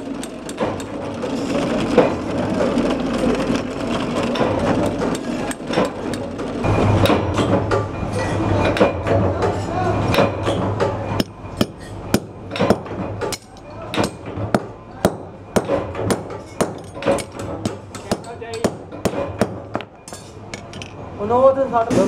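Hammer striking a stainless steel door-latch bracket around its bolt rod on a steel block: a long series of sharp metallic blows, about one to two a second, with a low machine hum behind.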